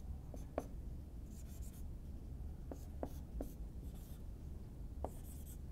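Dry-erase marker writing on a whiteboard: faint scattered taps as strokes start and stop, with a few short high squeaks of the tip across the board.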